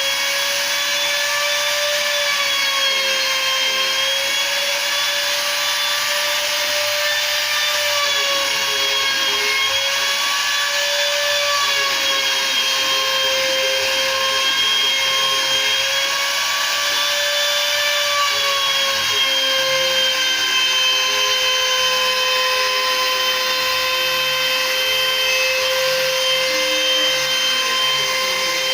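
CNC router spindle running at high speed with a steady high whine, its pitch dipping slightly and recovering over and over as the bit cuts, over a hiss of cutting noise.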